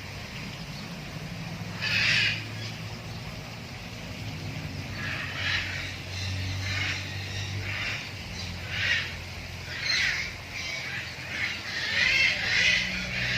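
Short animal calls repeating about a dozen times, coming closer together near the end, over a steady low hum.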